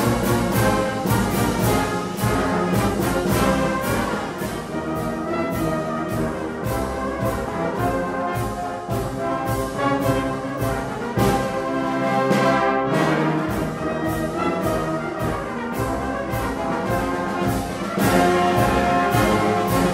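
Brass band music playing steadily, many brass instruments sounding together.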